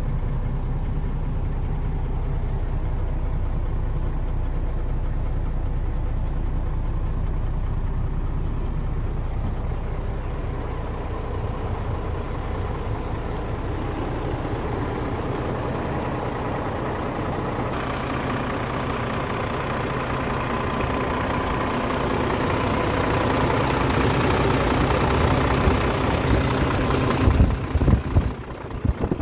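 Caterpillar 3306 inline-six diesel idling steadily. It sounds muffled at first, as from inside the truck's cab, then brighter and louder as the microphone comes close to the engine, with a few thumps near the end.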